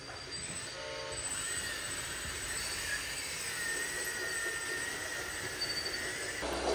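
Radio-controlled construction machines' electric motors and gearing whining, a steady, slightly wavering high tone over a mechanical hiss that cuts off near the end.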